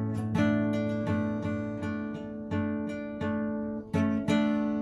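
Acoustic guitar strummed, chords ringing on between strokes, with harder strums near the start and about four seconds in.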